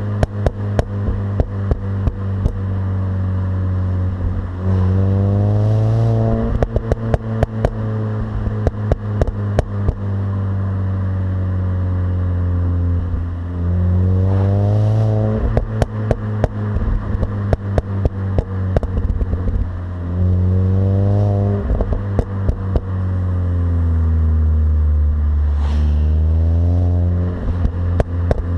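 Stock Mini Cooper S R53's supercharged 1.6-litre four-cylinder engine, revving up quickly four times and winding slowly back down between rises. Many sharp clicks and rattles sound over the engine.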